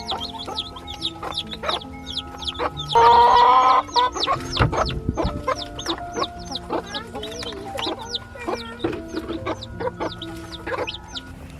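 Chickens clucking and peeping, with one loud call lasting just under a second about three seconds in, over soft background music.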